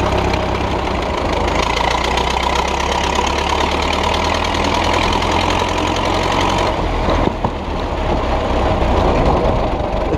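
1927 Ford Model T four-cylinder engine running a homemade tractor as it drives along, pushed in a higher gear than second. Its sound turns duller about seven seconds in.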